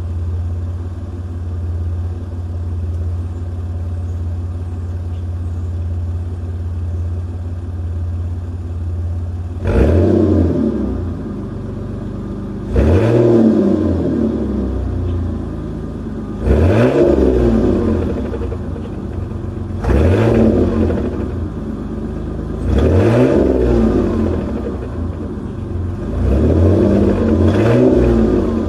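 2007 Ford Taurus V6 engine heard at the exhaust, idling steadily, then revved six times about every three to four seconds, each rev climbing and dropping back to idle. The engine is being revved to blow out the carbon and contaminants loosened by a Seafoam intake treatment.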